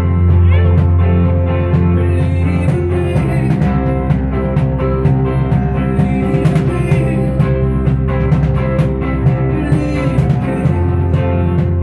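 Live rock band playing an instrumental passage: strummed acoustic guitar, electric guitar, bass guitar and keyboard over a steady bass line.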